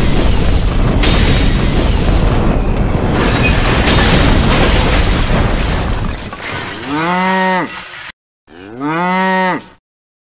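A long, loud blast of noise, an explosion sound effect, lasting about six seconds. As it fades, a cow moos twice, each moo rising and then falling in pitch.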